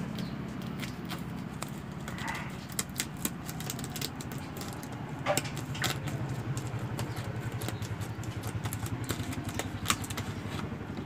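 A small engine running steadily as a low drone, with scattered light clicks and crackles over it.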